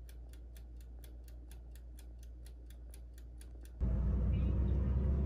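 Toaster oven's mechanical timer ticking steadily, about four ticks a second. Near the end it gives way to the louder, steady low rumble of a car cabin on the move.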